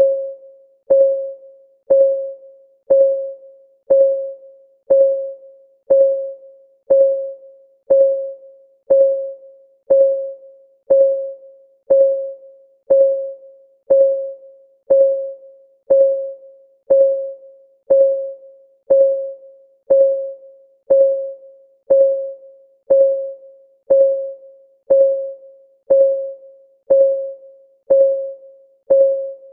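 Ticking-clock sound effect for a countdown timer: one short pitched tick a second, each dying away quickly, in a perfectly steady beat.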